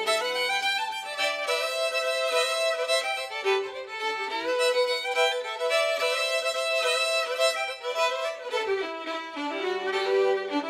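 Folk fiddle tune played on violin. A low held note under the melody drops out at the start and comes back near the end.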